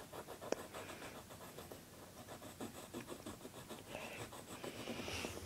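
Drawing strokes on paper: a run of quick, faint scratches as a drawing tool sketches lines, with a sharper click about half a second in.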